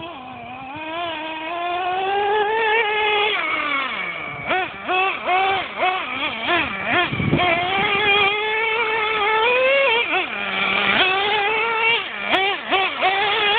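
Traxxas Nitro Rustler's 3.3 nitro two-stroke engine revving as the RC truck is driven: a long rising rev, then a run of quick throttle blips, dropping briefly to a low idle about ten seconds in before blipping again.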